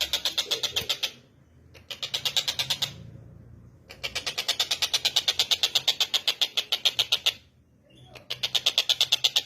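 Tengkek buto kingfisher calling: a fast chattering run of sharp, high notes, about seven a second, repeated in four bouts with short pauses between them.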